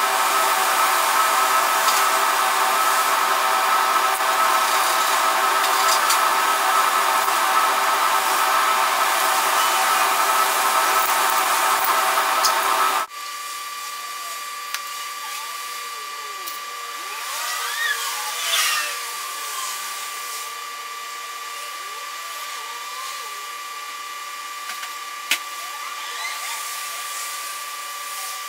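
Gas welding torch flame hissing steadily, with a few faint ticks. About halfway through it cuts off abruptly, leaving a much quieter steady hum with a single sharp click near the end.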